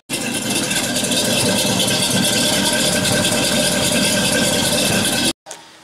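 Car engine running steadily and loudly, cutting off abruptly about five seconds in.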